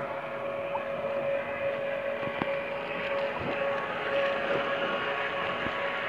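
Radio-controlled model tugboat's motor running with a steady whine while it pulls hard on a tow line, over churning water and wind.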